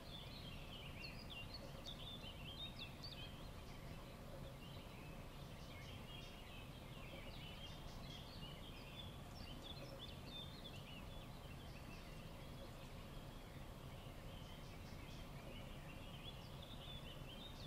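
Faint, continuous twittering and chirping of many small birds, over a low, steady background rumble.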